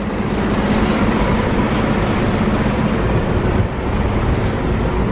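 Articulated diesel city bus pulling away from the stop and driving past close by: a steady low engine hum over heavy road and tyre noise.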